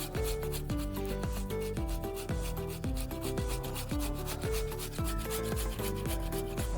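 Boiled potatoes being rubbed by hand against a grater: repeated rasping strokes, with background music under them.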